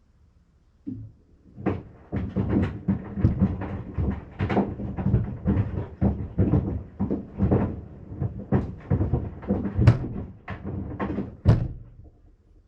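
Sandals knocking and thumping against the sides of a Maytag washing machine's tub as it runs, an irregular run of loud knocks, several a second, that starts about a second in and stops near the end.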